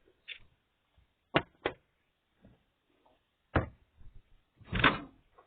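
A few sharp knocks and clunks: two close together about a second and a half in, another at about three and a half seconds, and a longer, louder clatter near the end.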